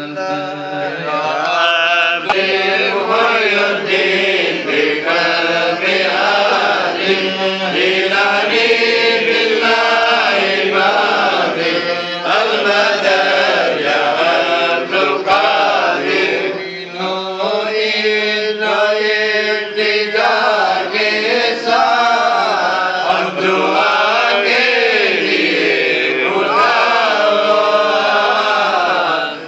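Men's voices chanting an Islamic devotional recitation into a microphone, a continuous melodic chant.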